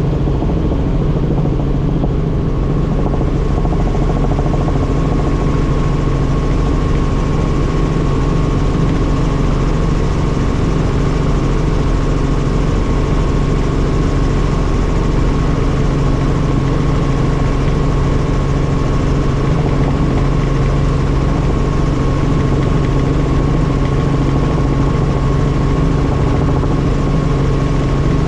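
Helicopter in flight: a loud, steady drone of turbine and rotor, holding several constant tones with no change in pitch or level.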